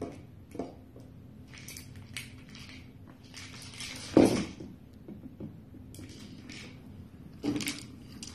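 Shiba Inu chewing and mouthing a plush toy: scattered soft crunches and rustles, with a louder burst about four seconds in and another near the end.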